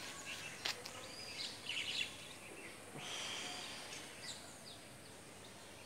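Birds chirping in short calls every second or so over faint outdoor background noise, with a single sharp click under a second in.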